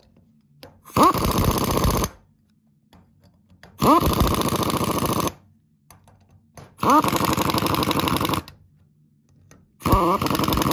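MAC Tools impact wrench hammering the pulley bolts home: four bursts of about a second to a second and a half, each starting with a quick rising whine. The bolts of the supercharged Jaguar Land Rover crank pulley are being run fully tight one at a time instead of evenly in a star pattern.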